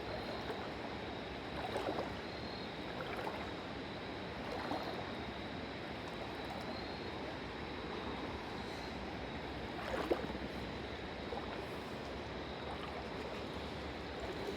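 Steady rush of water, with a few brief soft splashes or knocks, one about 10 seconds in.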